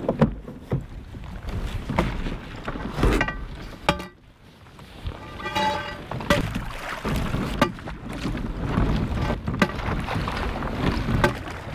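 Heavy cast iron pipe swung down again and again onto thin lake ice, cracking and breaking it: sharp knocks every second or two, with crunching ice and slush sloshing between strikes.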